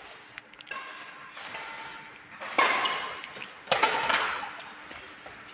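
Badminton rackets striking the shuttlecock in a rally: sharp hits about a second apart, each ringing out in an echoing hall. The two hits in the second half are the loudest.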